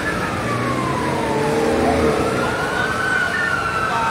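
Emergency vehicle siren wailing, its pitch gliding slowly down and then rising again about two seconds in, over a steady background din.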